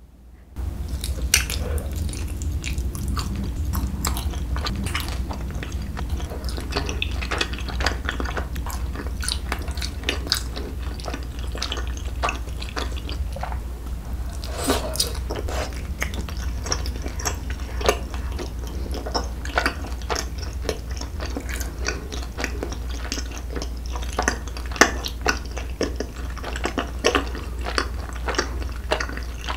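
Close-miked chewing and biting of a skewer of chewy rice cakes and tteokgalbi (grilled minced-meat patty), with many small wet mouth clicks throughout, over a steady low hum.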